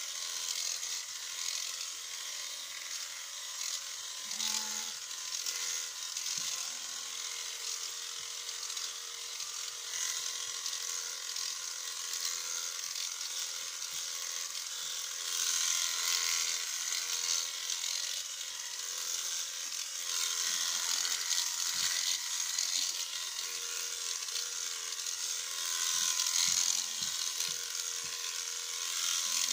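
Electric sheep shears running steadily as they clip through a sheep's fleece, a continuous mechanical chatter that grows louder for stretches about halfway through and near the end.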